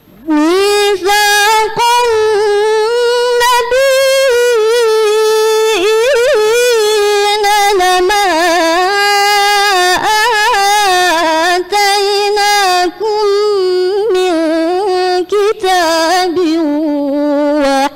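A teenage girl's voice reciting the Quran in the measured murattal style. She chants in long, drawn-out notes with wavering melodic turns, pausing only briefly for breath a few times.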